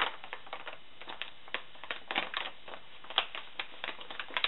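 Brown paper mailing envelope crinkling and crackling as hands press and fumble at its flap: irregular sharp crackles, a few each second, the loudest about three seconds in.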